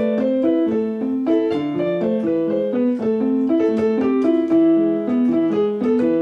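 Background piano music: a flowing run of short notes, several to the second.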